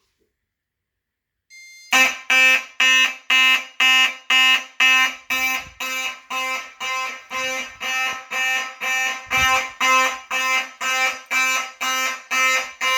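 Simplex 9838 fire alarm horn sounding in march time, about two blasts a second, after a Simplex 4251-21 pull station is pulled. It starts about two seconds in.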